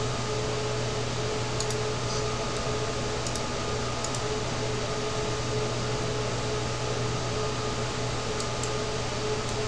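Steady hum and hiss of background room noise, with a few faint clicks of a computer mouse.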